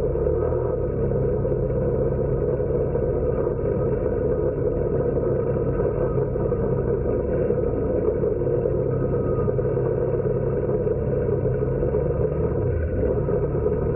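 ATV (four-wheeler) engine running at a steady pace while riding, with a brief dip in engine pitch late on.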